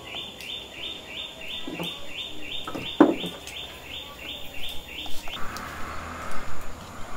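A bird repeating a short high chirp about three times a second, which stops about five seconds in. There is a single sharp knock about three seconds in, and near the end a soft hiss with scattered clicks.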